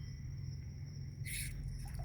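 Quiet night ambience: a steady low hum under a thin, steady high insect tone, with one brief rustle just past the middle.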